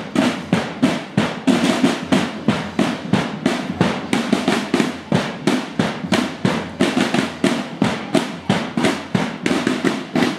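Parade drums beating a fast, even marching rhythm, sharp snare-like strikes about three a second over a lower drum.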